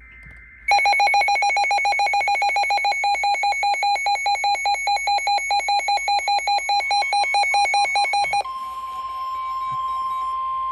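Weather alert radio sounding a flood warning alarm. A loud, harsh beep repeats rapidly, several times a second, for about eight seconds. It then gives way to the steady single-pitch NOAA Weather Radio warning alarm tone.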